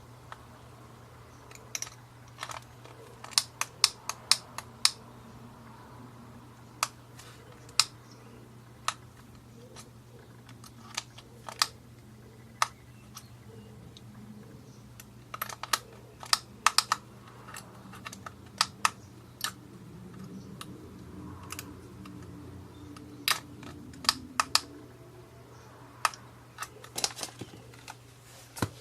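Irregular sharp plastic clicks and taps, some single and some in quick runs, from hands working a small plastic LED tester: LED leads pushed into its socket and its push-button pressed.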